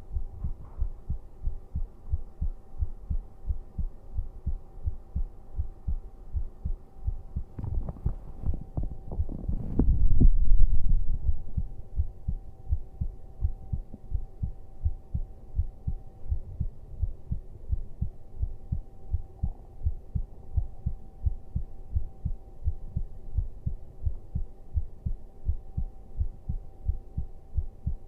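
A person's heartbeat heard close up: a steady, even rhythm of low thumps, with a louder low rumble swelling up about ten seconds in. A faint steady hum sits underneath.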